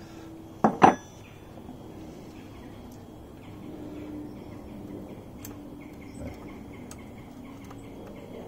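Hand tools on the cam chain tensioner's lock nut of a stripped Yamaha XJ650 engine: two sharp metal knocks about a second in, then a run of quick, light clicks.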